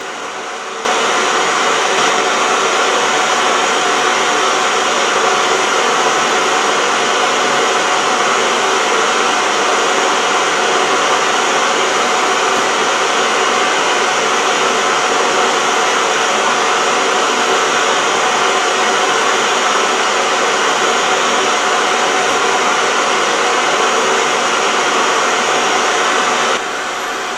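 Old television's static hiss, the steady noise of an untuned channel, which jumps louder about a second in and drops back to a lower level near the end.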